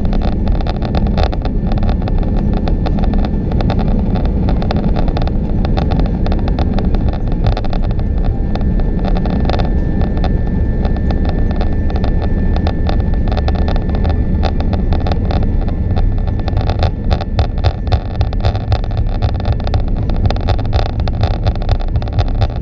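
Airbus A330 airliner taxiing, heard from inside the cabin: a loud, steady engine and rolling rumble with a constant patter of small clicks and rattles.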